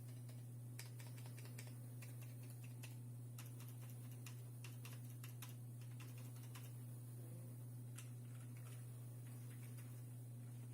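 Typing on a plateless, PCB-mounted KBD75 mechanical keyboard with Cherry MX Brown switches fitted with QMX silencing clips and PBT Cherry-profile keycaps: fast runs of keystroke clicks, thinning out near the end, over a steady low hum.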